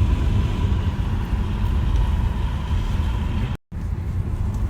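Steady road and tyre rumble inside a moving car running on freshly fitted summer tyres, with a faint steady whine over it. The sound cuts out completely for a moment about three and a half seconds in.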